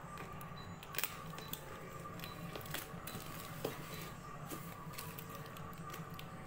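Small scissors snipping and crunching through a cardboard box and its packing tape in irregular, separate cuts, over a faint steady hum.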